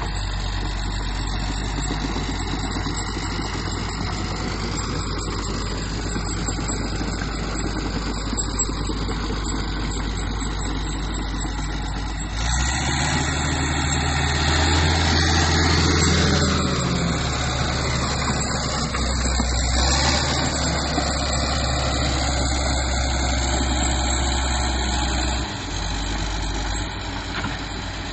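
Bulldozer's diesel engine running steadily, growing louder about halfway through and dropping back to its earlier level near the end.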